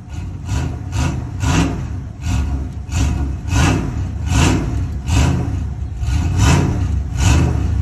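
Pickup truck engine running with a rhythmic lope, about two pulses a second.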